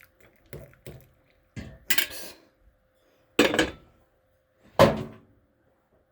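Tea things being handled on a counter: a few light clicks, a short clatter, then two sharp clunks of dishes or a glass container being set down, over a faint steady hum.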